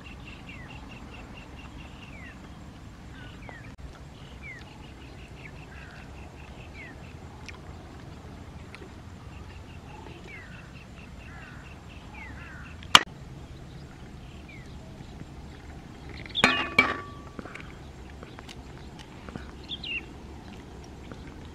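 Small birds chirping: repeated short falling chirps and bursts of rapid high ticking trills. A single sharp click comes about 13 seconds in, and a louder brief call about 16 to 17 seconds in.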